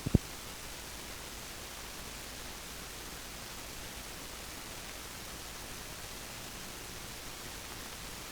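Steady hiss on the JVC VHS-C camcorder tape's audio track between two recordings, opening with two quick clicks at the cut.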